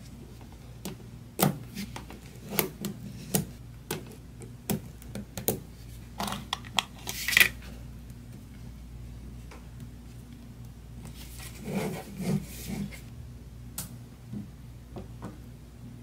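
Small neodymium magnet balls clicking and snapping together as they are handled and pressed into place, in two irregular runs of sharp clicks with a quiet stretch between, over a faint steady hum.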